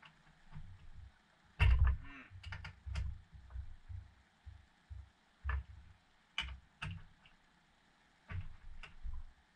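Irregular clicks, clinks and light knocks of a socket set on battery terminal nuts as they are snugged up by hand, some coming in quick little groups, the loudest about one and a half seconds in.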